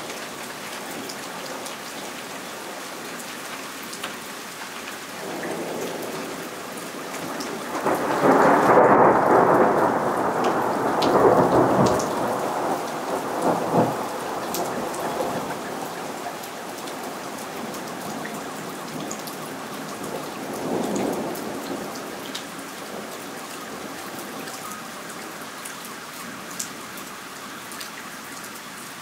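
Steady rain falling through a thunderstorm. About eight seconds in, a long clap of thunder builds and stays loud for several seconds before dying away. A weaker peal of thunder follows about two-thirds of the way through.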